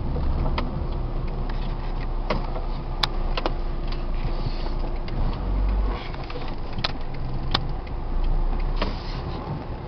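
Car driving slowly over a rough, potholed dirt road, heard from inside the cabin: a steady low engine and road rumble with about seven sharp knocks and rattles scattered through as the car jolts over the bumps.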